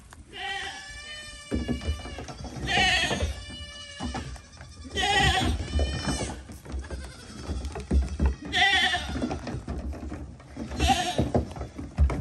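Goat kids bleating again and again, and from about a second and a half in their hooves tap and thump on the hull of an upturned dinghy as they jump on and off it.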